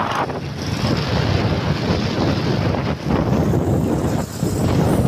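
Wind buffeting the microphone of a camera held on a moving motorcycle, with the motorcycle's running engine and road noise underneath. The rush eases briefly twice, around the middle and just past four seconds.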